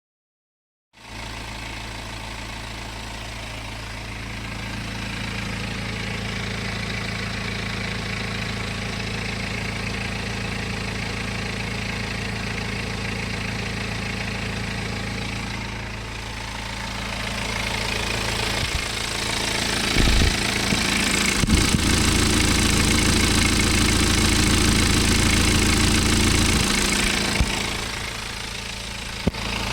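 BMW N47 2.0-litre four-cylinder turbodiesel idling steadily, with no rattling or scraping from the replaced timing chain. It gets louder for several seconds past the middle, then drops back near the end, with a few sharp clicks.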